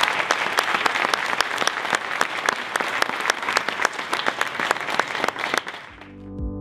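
Audience applause, many people clapping. It dies away near the end as electronic music with a low beat comes in.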